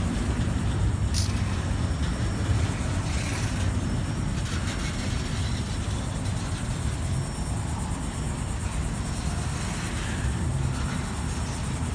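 Double-stack intermodal well cars rolling past over a road crossing: a steady low rumble of steel wheels on rail, with a sharp click about a second in.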